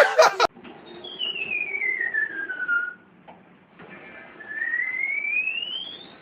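A long whistle-like tone sliding downward in pitch. After a pause, a second long whistle slides upward.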